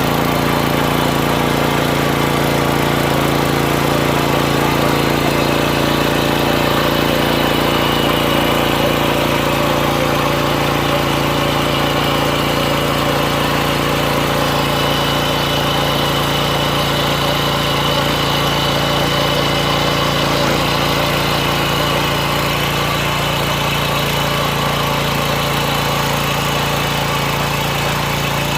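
Mini tiller's small engine running steadily under load as it ploughs the soil.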